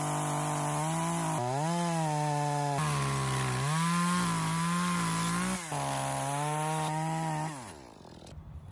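Small chainsaw cutting through a partly rotten tree stump, its motor pitch rising and dipping as it works through the cut. Near the end it slows and falls away.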